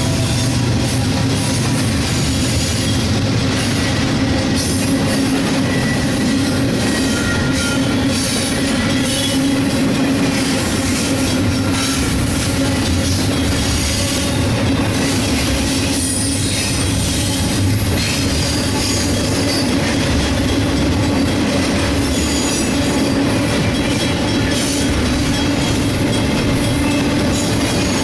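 A train rolling past at close range: a steady, loud rumble of steel wheels on the rails, with faint wheel squeal now and then.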